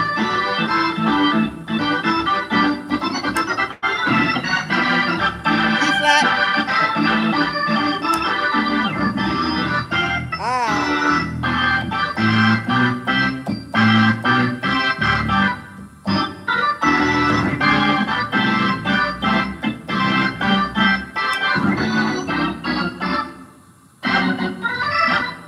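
Organ playing gospel chords and a moving melody, with a brief pause just before the end.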